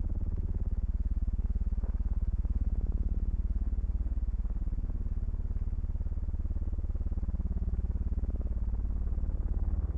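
Low, steady engine drone with a fast, even pulsing beat, as of a piston aircraft engine in flight.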